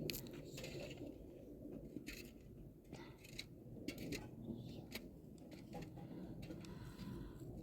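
Scattered light clicks and knocks, as of small objects being handled, over a steady low background noise.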